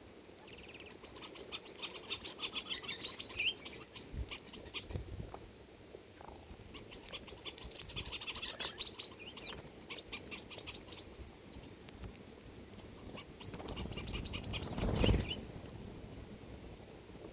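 Small birds chirping in two long spells of rapid, dense chattering. Near the end a whooshing rush swells to a peak and fades.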